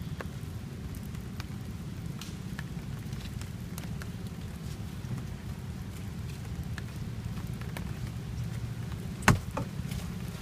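Steady rain with scattered drops clicking. One sharp knock about nine seconds in stands out above it.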